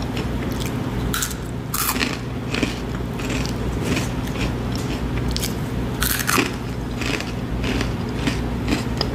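A person chewing crunchy food with the mouth closed: irregular crunches and crackles, loudest about two seconds in and again about six seconds in, over a steady low hum.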